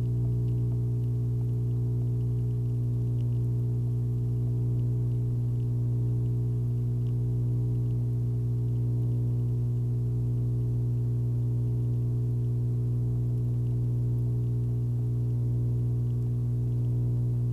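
Steady, unchanging low hum: a strong deep tone with a stack of weaker overtones above it.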